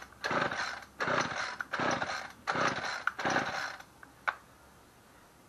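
Recoil starter of a Homelite string trimmer being pulled about five times in quick succession, rope and pawls rasping on each stroke, with the engine primed and on the start setting. The engine does not catch, and a single click follows the last pull.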